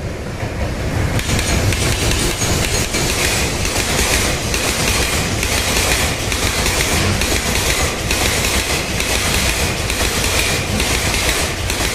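Freight train passing close by: the EH500 electric locomotive followed by a rake of Taki 1200 tank wagons, steel wheels clattering over rail joints in an uneven, rapid rhythm over a steady rumble. It gets louder and brighter about a second in as the wagons roll past.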